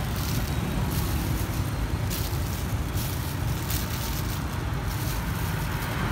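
Steady low rumble of street traffic, with a few brief crinkles of a thin plastic bag as peeled palm fruit pieces are bagged.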